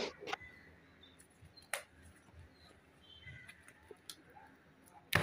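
Faint, scattered handling noises from a boxed bed sheet set being picked up and turned over: light taps and rustles of cardboard and plastic packaging, a few brief high squeaks, and a sharper knock near the end.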